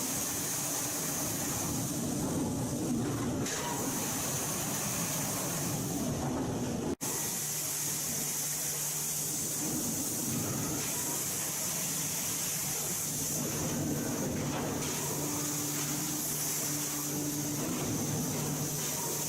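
Steady industrial machinery noise with a strong hiss. It breaks off for an instant about seven seconds in, then carries on with a low steady hum under the hiss.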